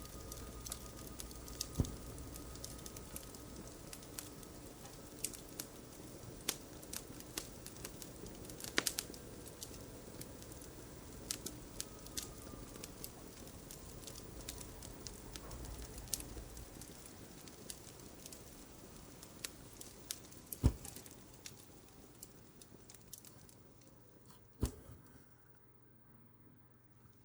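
Wood fire crackling: irregular sharp pops and snaps over a faint hiss, thinning out and growing quieter near the end.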